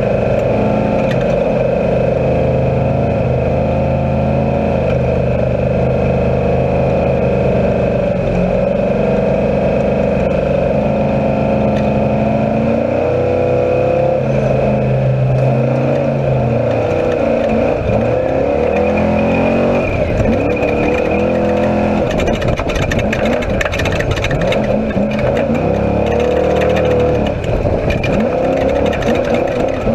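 Off-road race vehicle's engine heard from inside the cockpit, holding a steady pitch for the first dozen seconds, then revving up and down with throttle changes. Rattles and knocks come in from about halfway through, thickest near the end.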